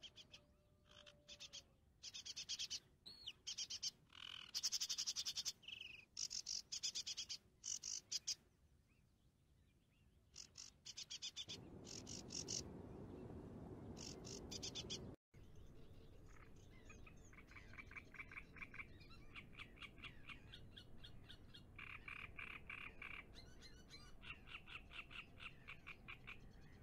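Frogs calling in trains of rapid pulsed trills, repeated over and over, with chirps from birds. A few seconds of low rushing noise come in near the middle and stop at a brief gap in the sound.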